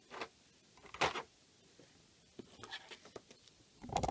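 Light handling noises of a small plastic action figure and its parts: scattered soft clicks, taps and scratches, with a louder burst of handling near the end.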